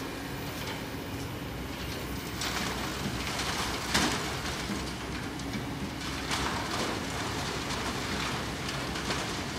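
Kobelco SK200 hydraulic excavator's diesel engine running steadily while sand and stones clatter as the bucket tips material onto a sorting screen, with a sharp knock about four seconds in, the loudest moment.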